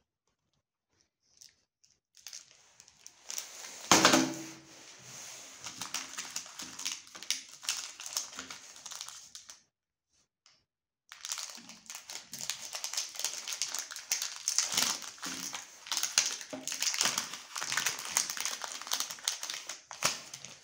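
Plastic and foil chocolate-bar wrappers crinkling as they are handled and torn open. There is a sharp knock about four seconds in, and a pause of over a second before the crinkling starts again, denser.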